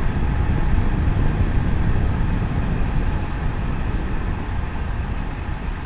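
Steady low rumbling background noise with no distinct events: an open-air ambient rumble of the kind made by distant traffic or wind buffeting the microphone.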